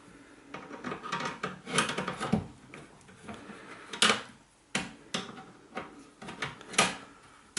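Hands and a screwdriver working on a cooker door as its screws are undone to free the inner glass panel: irregular clicks, knocks and scrapes of the metal door parts, the sharpest knocks about four seconds in and near the end.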